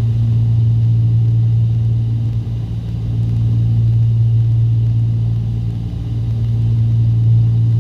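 Cessna 310's twin piston engines and propellers droning steadily in cruise, set to about 2300 RPM and 21 inches of manifold pressure.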